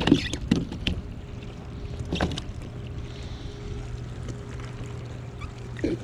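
A hooked mangrove snapper splashing and thrashing at the side of a kayak as it is brought in, with sudden splashes and knocks in the first second, about two seconds in, and near the end, over a steady low hum.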